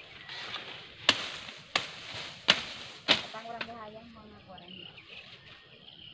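Machete chopping at the base of a cassava plant: four sharp blows, roughly two-thirds of a second apart, in the first half.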